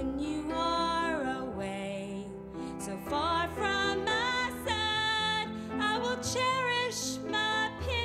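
Show tune: a sung melody over instrumental accompaniment.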